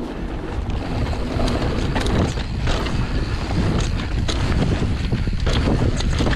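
Wind buffeting the microphone of a camera on a descending mountain bike, over a steady rumble of knobby tyres on a dirt trail, with frequent clicks and rattles from the bike as it runs over roots and bumps.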